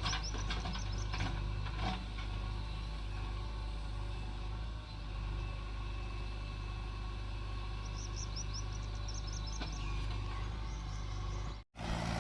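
Diesel engine running steadily at idle, a constant low hum, with short high bird chirps near the start and again about eight seconds in.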